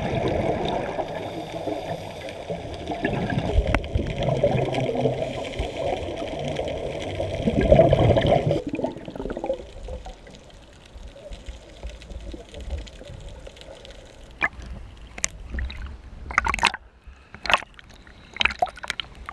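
Muffled underwater bubbling and rushing water against a camera housing. It stops abruptly about eight seconds in and is followed by a quieter stretch, then a run of short, sharp splashes and slaps of water at the surface.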